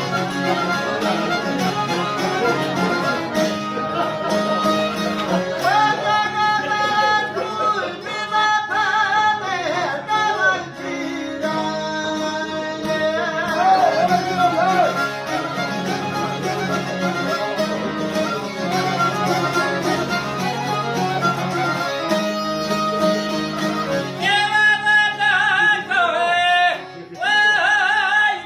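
Folk song: a wavering sung melody over string accompaniment, with a steady low drone underneath.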